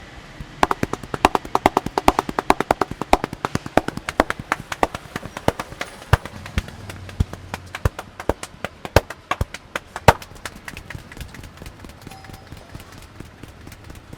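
Rapid series of sharp hand slaps and claps of a street barber's percussive head massage, about six a second at first, then slower and more spaced out from about five seconds in.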